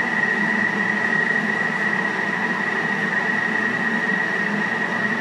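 Thermomix motor running a short mix at speed 4 through grated potato batter: a steady whir with an even high whine.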